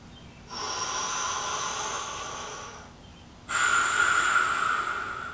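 A man taking slow, deep belly breaths: two long airy breaths of about two seconds each, the first starting about half a second in, the second about three and a half seconds in.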